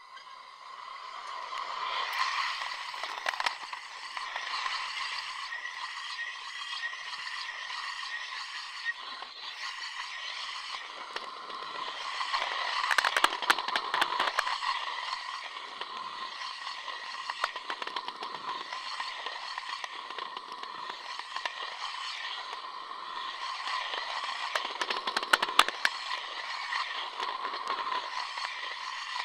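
Union Pacific Big Boy No. 4014 steam locomotive approaching and passing at speed, picked up through a contact microphone attached to the rail. The rail rings with a steady high hum under a scraping, crackling vibration that swells about every second and a half. It starts about a second in and grows louder, with peaks about midway and again near the end.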